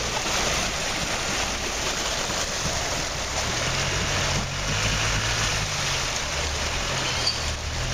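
Land Rover Discovery wading through a deep muddy puddle: a steady wash of splashing, sloshing water over its engine pulling at low revs, the revs rising and falling a few times.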